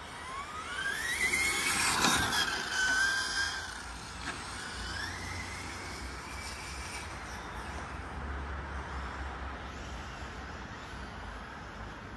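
Radio-controlled racing car going by at speed: a high whine climbs in pitch as it accelerates, is loudest and drops in pitch as it passes about two seconds in, then climbs again more faintly about five seconds in as it speeds away.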